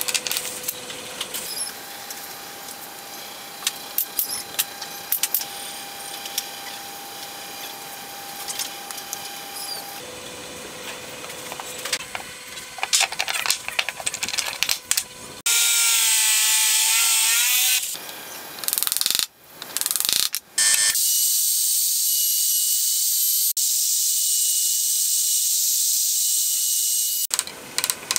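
Woodworking shop sounds in quick cuts: clicks and knocks of wooden strips being handled and a bar clamp being tightened, then a power tool running steadily and high-pitched for a few seconds, twice, with abrupt breaks between.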